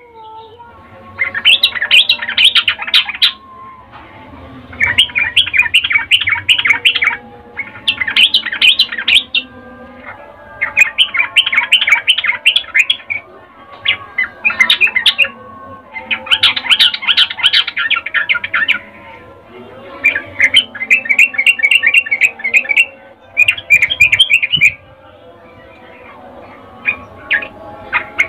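Yellow-vented bulbul giving about nine bursts of fast chattering notes, each burst one to three seconds long with short gaps between. This is the excited chatter that bird keepers call a female trucukan's breeding-condition call, played to get males singing.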